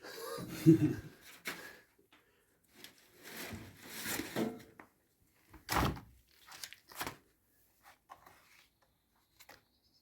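Irregular knocks, bumps and short rustling noises of things being handled and moved, the sharpest knocks about a second in and near the six-second mark.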